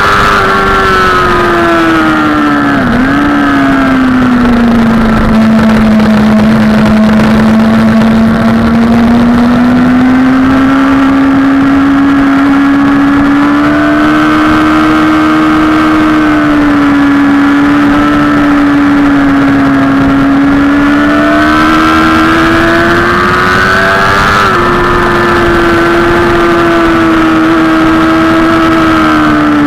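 Sport motorcycle engine running hard at track speed, heard over heavy wind rush. The engine note dips and falls about three seconds in, then climbs slowly, and steps down suddenly about twenty-four seconds in.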